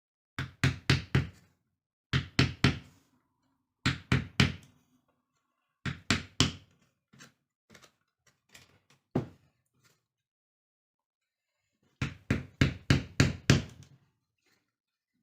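Hammer tapping in quick groups of four or five knocks, pausing between groups, with a few scattered single taps and a longer run of about eight strikes near the end.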